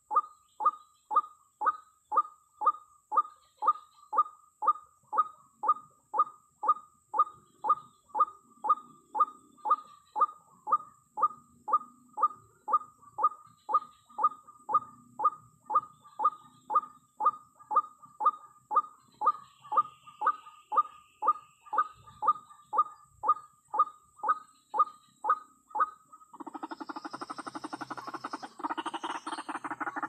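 White-breasted waterhen call used as a decoy lure: one short note repeated about twice a second, very evenly. Near the end a louder, harsh, rapid chattering takes over.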